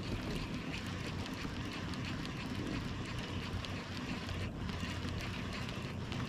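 Steady wind noise on the microphone with a low, steady hum underneath.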